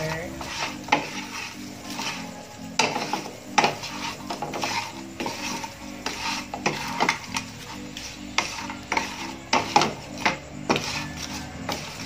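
Wooden spatula scraping and knocking against a non-stick frying pan as fried chicken wings are stirred and tossed in melted butter, with a light sizzle underneath. The scrapes come irregularly, about once a second.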